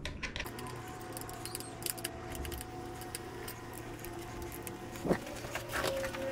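Light metallic clicks and jingling of small hardware and hand tools, with one sharper click about five seconds in, as a turn-signal mount and its bolt are being adjusted.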